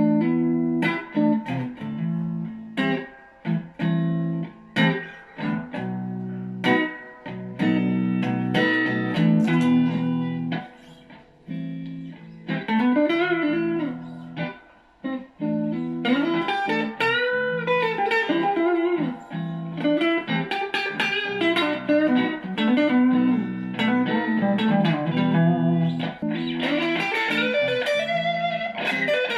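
Electric guitar played through a Fender Frontman Reverb amp: short, repeated chord strikes for the first twelve seconds or so, then single-note lines with bent notes.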